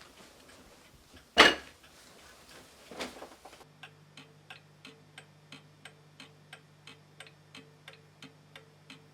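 A sharp thud about a second and a half in, the loudest sound, and a softer knock near three seconds. Then a clock ticks steadily, about two ticks a second, over a faint low hum.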